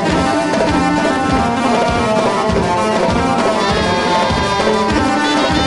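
Live band playing Arabic dance music: a melody line over a steady, fast drum beat, with a higher melodic line joining a little past halfway.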